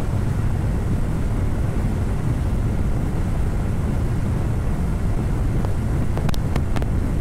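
Steady low rumble of wind buffeting the microphone on a moving Yamaha Fazer motorcycle, its engine running at a steady pace underneath. A few light clicks come about six seconds in.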